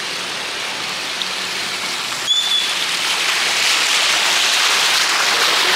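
Heavy rain and flood water hiss steadily around a car moving through a flooded street, a little louder from about two seconds in. A brief high-pitched tone sounds about two seconds in.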